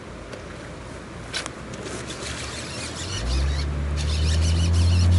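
An engine hum sets in about three seconds in and grows louder, slowly rising in pitch, like a motor vehicle passing or speeding up. Faint high chirping and a single click come before it.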